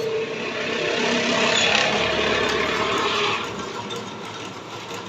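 Metal lathe running, with a harsh scraping hiss that builds and then eases off about three and a half seconds in.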